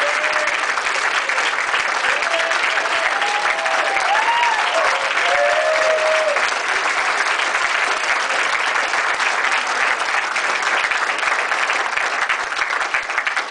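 Wedding guests applauding the newly married couple, a steady dense clapping that goes on throughout and fades at the very end.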